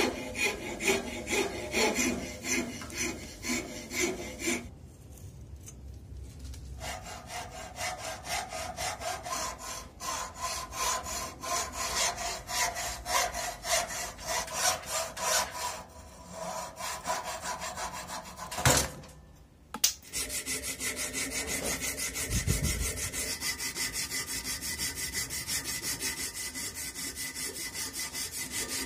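A hand file scraping in repeated strokes along a jackfruit-wood axe handle held in a vise, shaping the wood, with a short pause about five seconds in. Two sharp knocks come near the 19-second mark, then the scraping turns faster and more even as an abrasive cloth strip is worked back and forth around the handle.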